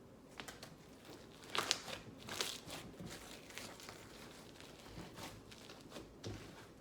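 Slime being mixed with foam soap: irregular wet crackles, clicks and pops, busiest about two seconds in.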